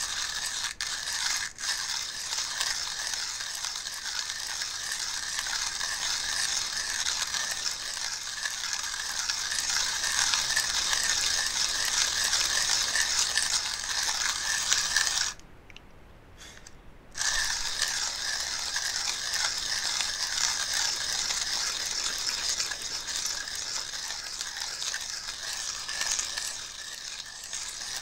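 Coffee grinder grinding beans: a steady, rapid mechanical crunching that stops for about two seconds a little past the middle, then starts again.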